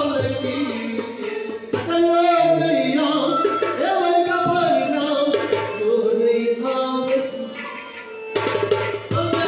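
Live Kashmiri folk music: a singer's voice over harmonium and bowed strings, with a hand drum beating a steady rhythm.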